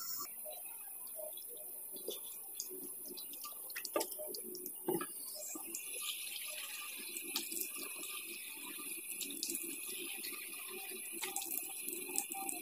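Water running from a tap into a bathroom sink, starting about halfway through, with small knocks and splashes as hands scoop the water up to rinse a face.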